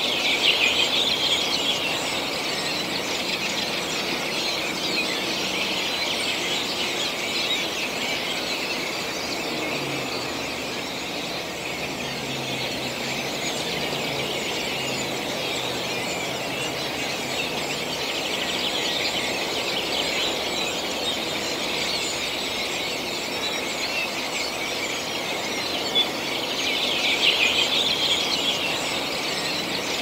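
A spring morning chorus of many wild songbirds singing at once, a dense, continuous twittering that swells briefly at the start and again near the end.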